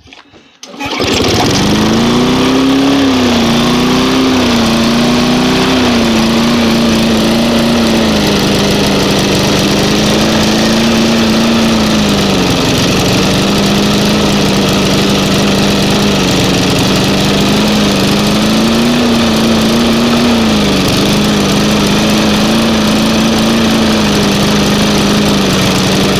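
Lawnmower's small gasoline engine starting about a second in and then running. Its speed wavers up and down for the first several seconds, then holds steady apart from two brief dips.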